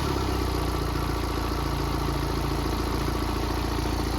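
Mini R56's 1.6-litre N47 four-cylinder diesel idling steadily just after a warm restart. It is quiet from the start, with no timing chain rattle, as the new upper chain tensioner already holds oil pressure.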